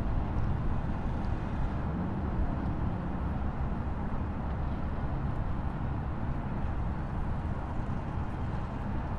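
Waterfall: a steady, unbroken rush of falling water, heavy in deep rumble.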